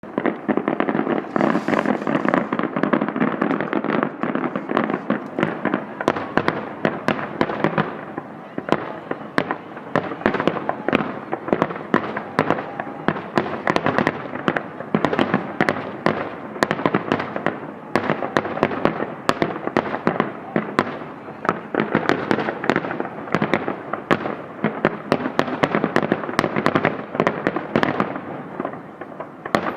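Fireworks display: a dense barrage of sharp bangs, several a second, over a continuous crackling rumble that never lets up.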